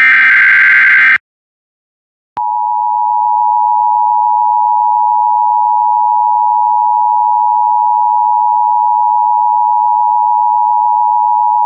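An Emergency Alert System SAME header data burst, a harsh digital screech, cuts off about a second in. After a second of silence, the National Weather Service's long, steady single-pitch attention tone starts and runs on.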